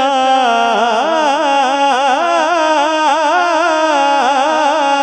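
A man singing a naat into a microphone, drawing out one word in a long ornamented melody that wavers up and down without a break.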